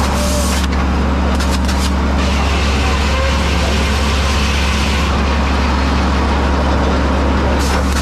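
Circle sawmill machinery running with a steady, loud low drone. A hiss comes in for a few seconds in the middle, and clattering knocks come near the end.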